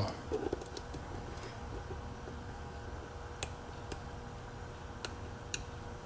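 Sparse, sharp metallic clicks and ticks of a dimple pick working the pins of a 10-pin dimple euro half-cylinder lock under tension, a handful of separate clicks spread over a few seconds, over a faint steady hum.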